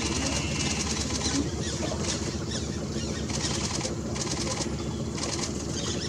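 Small boat's outboard motor idling steadily, with short bursts of rapid high chirring about once a second.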